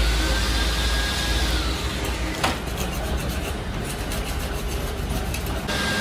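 A pneumatic die grinder whines steadily, then winds down and stops about two seconds in, and starts again near the end. In between come a sharp metallic clink and a run of quick scraping and tapping from hand tools on the cylinder head, over a steady low workshop hum.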